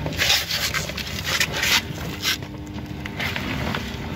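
Short hissing bursts of an aerosol spray, about four of them, applying fluorescent magnetic particle ink to a steel weld during a magnetic particle test, over a steady low hum.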